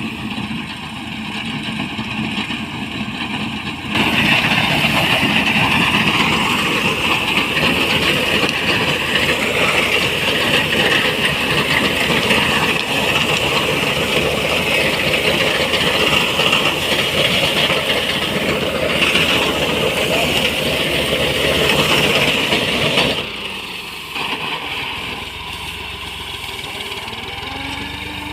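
Engine-driven harvesting machinery running steadily with loud mechanical clatter and hiss. It gets abruptly louder about four seconds in and drops back abruptly a few seconds before the end.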